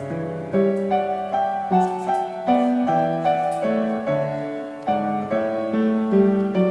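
Background piano music: a slow melody of single notes over held lower notes, with no other sound.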